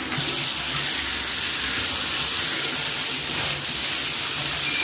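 Water running steadily into a tiled bathtub from the tub and shower fixture, a constant hiss of splashing water.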